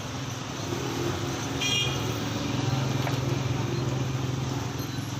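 Street traffic: a motor vehicle engine running steadily, growing louder over a few seconds as it passes close, with a brief high horn toot about a second and a half in.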